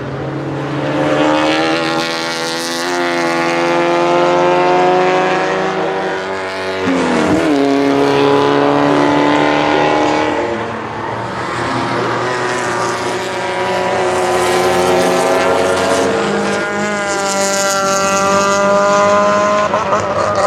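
Racing saloons' engines at full throttle as a pack of cars runs past. Their pitch climbs as they accelerate, drops sharply about seven seconds in and again a few seconds later at gear changes, then climbs again.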